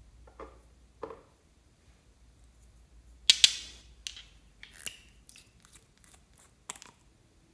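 Nail polish bottles being handled and their caps twisted, giving a run of hard little clicks and clacks. Two sharp clacks close together a little over three seconds in are the loudest; lighter clicks follow.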